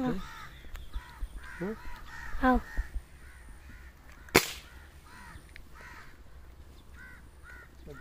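Birds calling in the trees, a steady run of harsh, crow-like caws repeating a few times a second. About four seconds in comes a single sharp crack, the loudest sound, which fits the air gun being fired.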